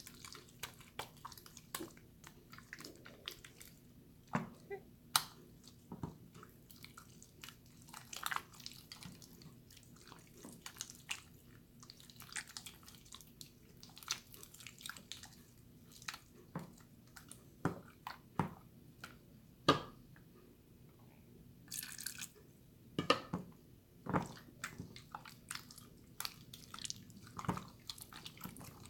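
Jiggly water slime being squished and worked, giving irregular wet clicks and pops.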